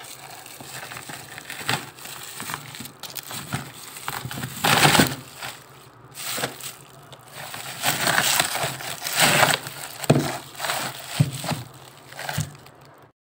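Plastic bags rustling and crinkling, with irregular knocks and cracks, as frozen plastic-wrapped packets of chicken are pulled loose from a packed freezer. The sound cuts off suddenly near the end.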